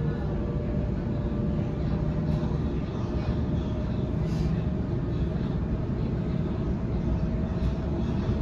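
Interior running noise of a Waratah B-set electric train travelling at speed: a steady low rumble of wheels on rail, with a faint whine from the traction motors that rises slowly in pitch.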